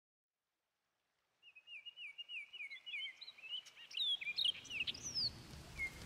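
Wild songbirds singing, starting about a second and a half in: a quick run of repeated down-slurred whistled notes, then varied chirps and whistles rising and falling in pitch.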